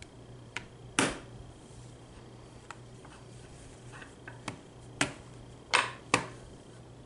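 Small hard clicks and taps, about seven in all, from makeup items being handled. The loudest comes about a second in, and three more come close together near the end, over a low steady hum.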